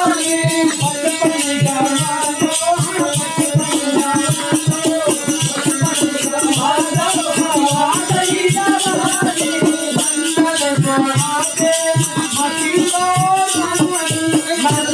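Bhajan music with a fast, dense drum beat and shaken rattles under a wavering melody line.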